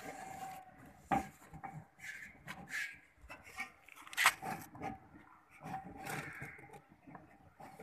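Hand assembly of a dish antenna's mounting bracket: bolts, nuts and bracket parts clicking and rubbing against the dish, with a sharp knock about a second in and a louder one about four seconds in.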